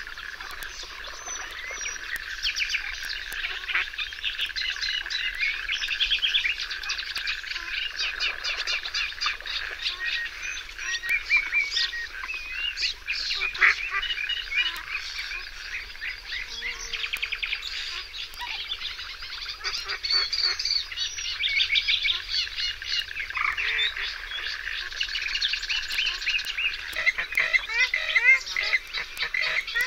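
Wetland chorus of many birds chirping and trilling together over a steady high-pitched drone.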